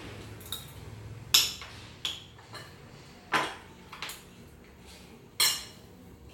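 Metal spoons clinking and scraping against ceramic rice bowls and plates during a meal: about seven sharp separate clinks, the loudest a little over a second in, with others near the middle and towards the end.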